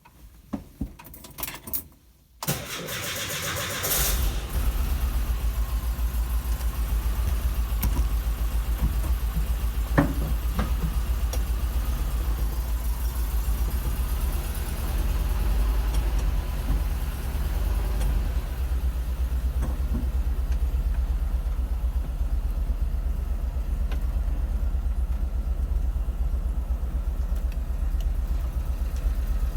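VW bus engine cranked by the starter after a few clicks, catching about four seconds in and then idling steadily with an even rhythmic knock, which the owner takes for piston slap.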